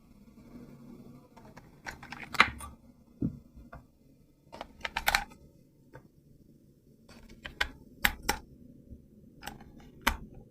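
Hands handling a plastic toy RC car and its packaging: sharp plastic clicks and rattles in about six short bunches with pauses between them, over a faint low hum.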